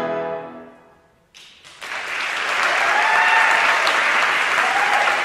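Women's choir's final sung chord dies away, followed by a moment of hush. About a second and a half in, audience applause breaks out and builds to a steady clapping, with a few whoops from the crowd.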